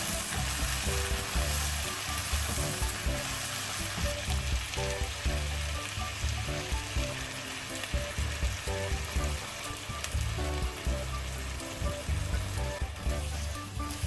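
Vegetables and chicken sizzling steadily in a hot wok while a spatula stirs and tosses them.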